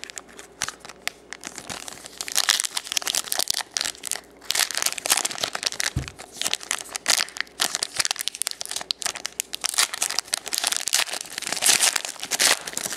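A 2010 Press Pass trading card pack's wrapper being torn open and crinkled, with irregular crackling throughout and a single dull bump about six seconds in.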